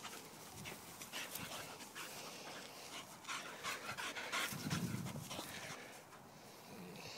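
A dog panting in short quick breaths close by, with scattered soft rustles and a brief low rumble about two-thirds of the way in.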